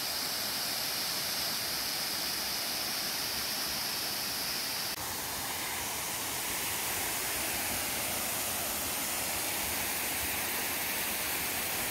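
Waterfall: a steady rush of falling water. Its high hiss softens a little about five seconds in.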